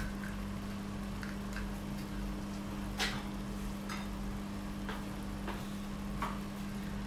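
Tomato sauce simmering and sizzling in a stainless steel pot on a gas stove, with scattered small pops and ticks, the sharpest about three seconds in, over a steady low hum.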